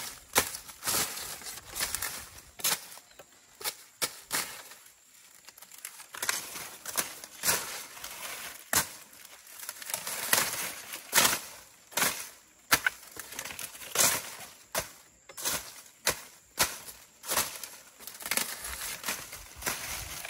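Machete cutting dry sugarcane leaves and stalks: irregular sharp swishing chops about once a second, with dry leaves rustling between them.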